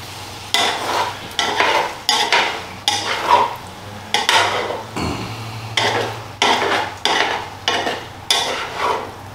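Metal spatula stirring and scraping gravy-coated potatoes, beef and mushrooms around a cast iron frying pan, in repeated strokes about one every half second or so.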